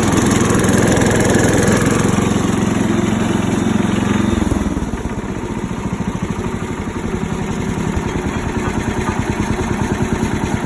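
Rebuilt single-cylinder-class garden tractor engine running steadily under throttle; about four seconds in its note drops to a lower, quieter run and holds there.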